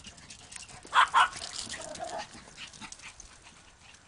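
A dog barking twice in quick succession about a second in, followed by a few fainter yips.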